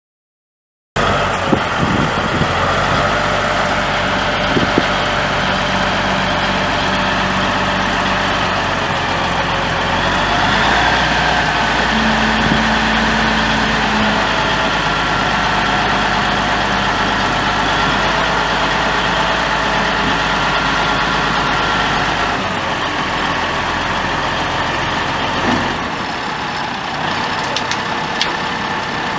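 Caterpillar 3406 six-cylinder turbo diesel of a 1981 International F4370 Transtar dump truck idling steadily, its tone shifting slightly a few times.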